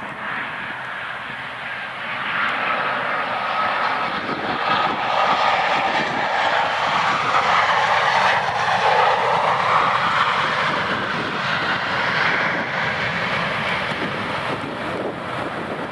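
Boeing 737-800 landing, its twin CFM56 jet engines running with a rushing noise and a faint whine. The sound builds as the jet comes in, is loudest around touchdown, swells again briefly, then eases as it rolls out.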